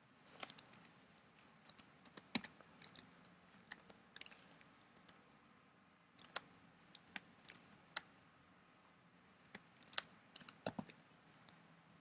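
Faint computer keyboard typing: irregular keystrokes in small clusters separated by short pauses.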